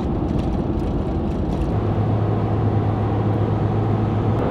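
Steady road and tyre noise heard from inside a moving vehicle's cab while driving. A low, steady engine hum joins in about two seconds in.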